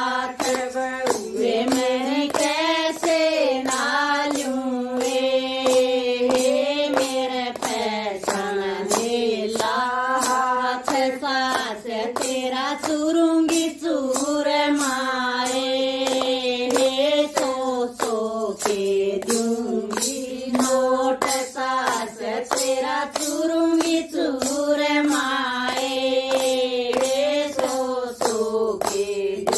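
Women singing a Hindi folk bhajan with long held notes, keeping time with steady hand claps, about two claps a second.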